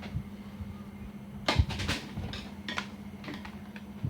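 A few light clicks and taps, meter probes and handling on a TV power board, the sharpest about one and a half seconds in, over a steady low hum.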